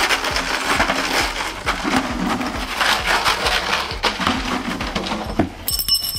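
Plastic clattering and scuffling as a Malinois attacks a decoy in a padded bite suit who strikes at it with a plastic bucket and bottles. Near the end a whistle sounds, the signal in ring sport that ends the bite.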